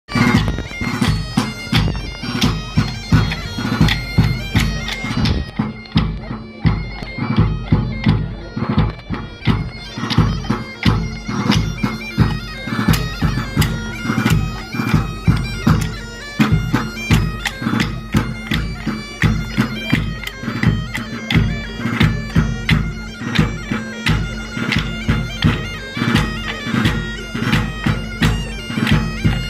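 Background music: a melody over a steady held drone, with a regular drum beat.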